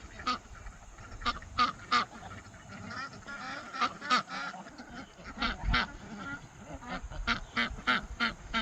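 Geese honking: a long, irregular run of short repeated honks.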